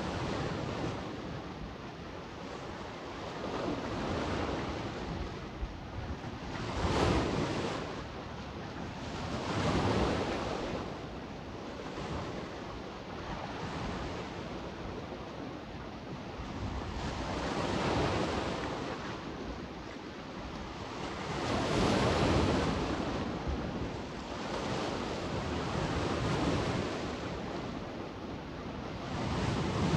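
Adriatic sea waves breaking and washing onto the shore, each surge swelling and falling away every three to four seconds, with a low rumble of wind on the microphone underneath.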